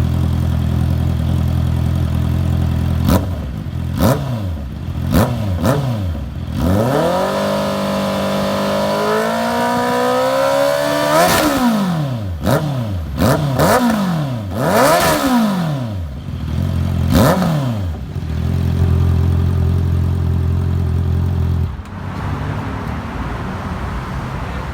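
Honda CB650R's inline-four revved through an SC-Project exhaust with tip. It idles steadily, takes several sharp throttle blips, rises and holds high revs for about four seconds in the middle, then blips quickly several times and settles back to idle, which drops a little near the end.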